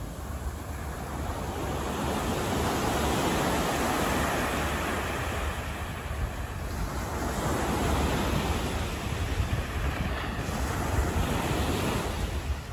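Outdoor city street ambience: a rushing noise that swells and fades several times over a steady low rumble.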